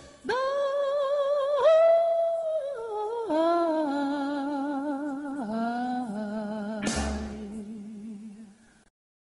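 Closing phrase of a song: a wordless vocal line held on long notes with vibrato, stepping down in pitch. A short hit comes about seven seconds in, then the music fades out near the end.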